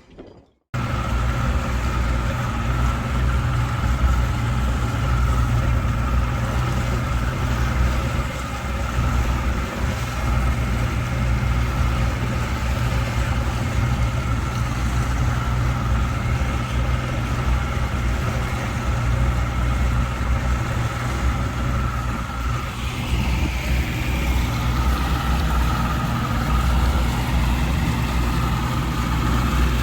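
A car's engine running steadily during a drive, with a constant low rumble and a steady whine. The sound starts abruptly about half a second in and shifts slightly a little over two-thirds of the way through.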